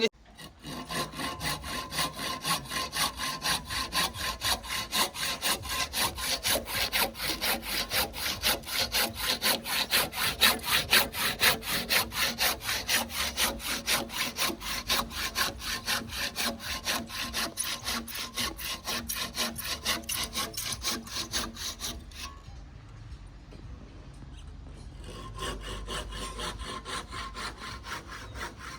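Hand saw cutting through wood in steady back-and-forth strokes, about three a second. It pauses about 22 seconds in and starts again more faintly a few seconds later.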